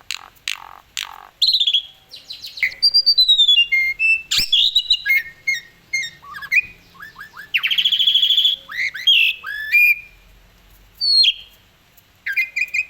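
Black-collared starling singing a varied song of loud whistled notes, downward slides and quick repeated chips, with a rapid trill near the end and one sharp click about four seconds in.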